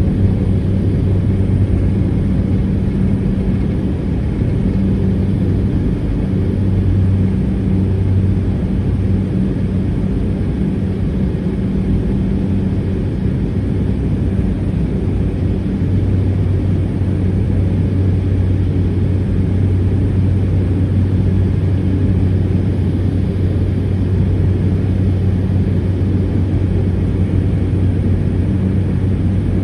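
Cessna 208 Caravan's PT6A turboprop engine and propeller running with a steady low drone.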